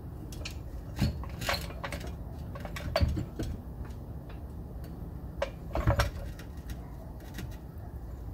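Scattered metal clinks and knocks, loudest about a second in, three seconds in and near six seconds, as the rear differential and axle shaft of a BMW E46 are shifted and worked loose by hand.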